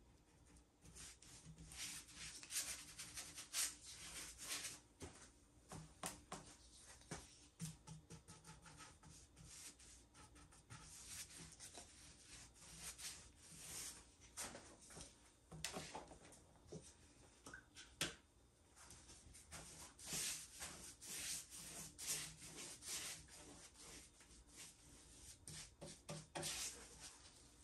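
A wide paintbrush swishing back and forth over a round table top's wet coating, in repeated bursts of quick strokes, with a few light taps.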